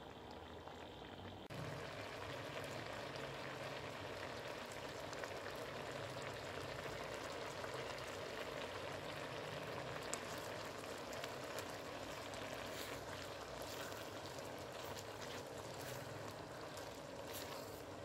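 Young coconut strands simmering in sugar syrup in a nonstick pan over low heat: a steady, soft bubbling, with a few faint clicks as a silicone spatula stirs them.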